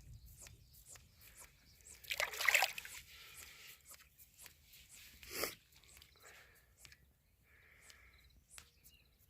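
Water sloshing at the river's edge, with a short splash about two seconds in and another briefly about five seconds in, and faint clicks throughout.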